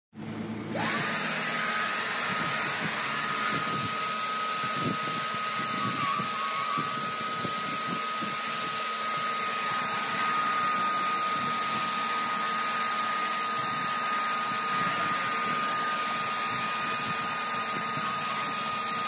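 Black+Decker 1200 W, 10-litre wet-and-dry drum vacuum cleaner switched on about a quarter second in, its motor winding up within the first second to a steady high whine with a rushing hiss. It then runs steadily while the floor nozzle sucks up a liquid spill in wet-cleaning mode.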